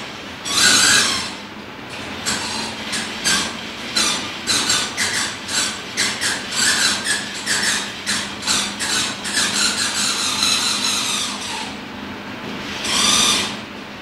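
Machinery in a 35mm film projection booth: a steady hum under irregular rubbing and squeaking, several bursts a second with short squeaks gliding down in pitch. A louder rasp comes near the end.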